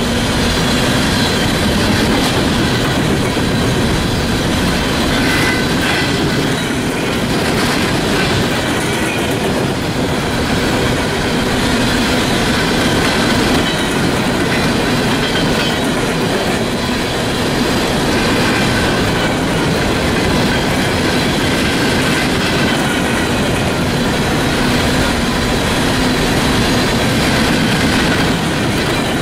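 Freight train of coal cars rolling past at speed. Steel wheels on rail make a loud, steady rush and clatter, with faint high squealing tones over it.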